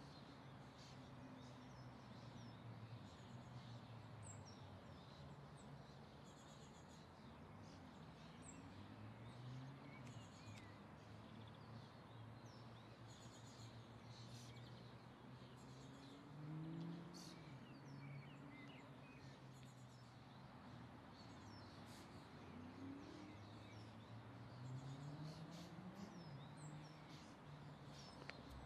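Faint outdoor ambience: scattered high bird chirps over a low, faint hum whose pitch slowly rises and falls.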